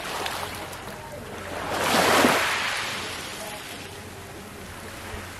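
Small sea waves lapping on a coral-rubble and pebble beach: one wave breaks and washes up the shore about two seconds in, then fades away.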